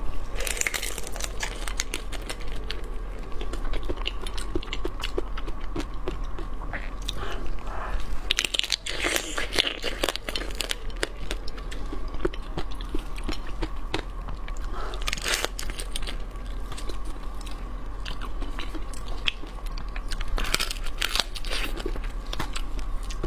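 Close-miked biting and chewing of spicy crab pieces: wet crunching and crackling, with louder bouts of crunching several times.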